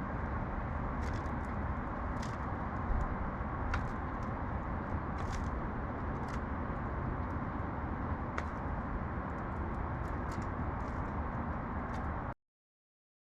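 Steady outdoor city ambience, a low hum of distant traffic, with scattered faint sharp ticks over it; it cuts off abruptly near the end.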